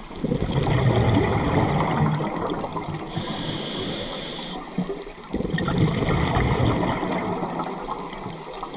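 Scuba breathing heard underwater through a regulator: two long rushes of exhaled bubbles, with a steady hiss of an inhaled breath between them.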